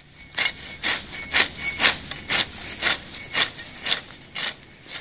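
A hand sickle (arit) cutting low grass and ground cover close to the soil, stroke after stroke in a steady rhythm of about two short rasping cuts a second, nine in all.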